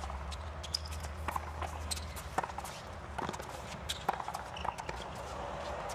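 Tennis racquets striking the ball back and forth in a baseline rally on a hard court: sharp pops roughly once a second, with fainter taps and scuffs of the players' footwork between them.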